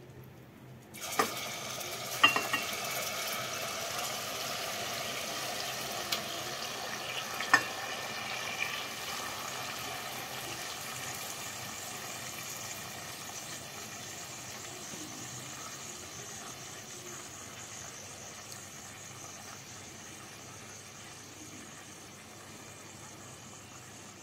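Yogurt-marinated chicken pieces hitting hot oil and butter in a metal pot: a frying sizzle starts suddenly about a second in and slowly dies down. A few sharp knocks come in the first several seconds as the chicken is scraped out of the glass bowl.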